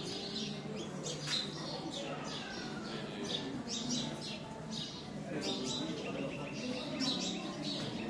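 Small birds chirping and twittering in quick, repeated high calls, over a low murmur of people's voices.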